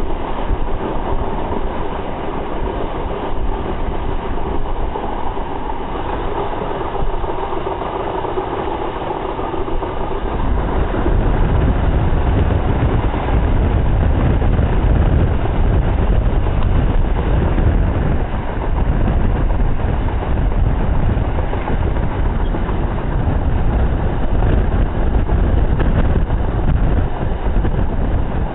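Passenger train running at speed, heard from a carriage window: steady wheel-on-rail running noise. About ten seconds in a much heavier low rumble comes in and stays.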